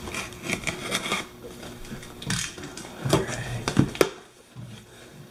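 A parcel being unpacked by hand: packaging rustling and crinkling, with many short clicks and knocks and a sharp snap about four seconds in.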